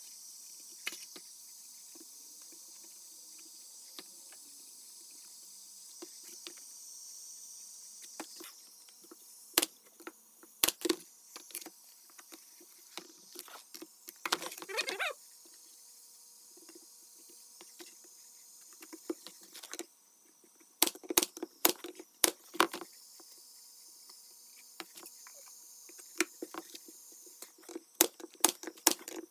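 Pneumatic brad nailer firing sharp shots, several in quick succession, as brads are driven into the glued finger joints of a plywood box, with wooden panels knocking and scraping as they are handled in between. A faint steady high hiss runs underneath.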